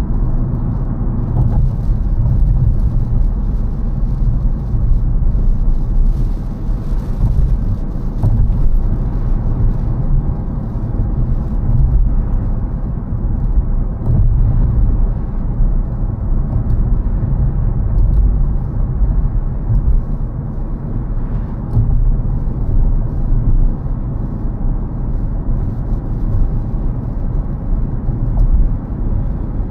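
A car driving along, with a steady low rumble of engine and road noise and no sudden events.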